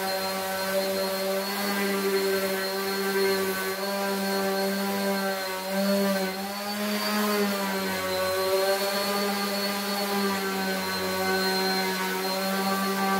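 Electric random orbital sander running steadily as it sands the wood of a cricket bat, a continuous motor whine. Its pitch wavers briefly about six seconds in.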